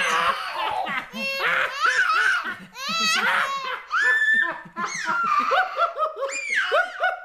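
A toddler laughing and squealing in high, gliding peals while being played with, with an adult man laughing heartily along. The laughter comes in quick repeated bursts near the end.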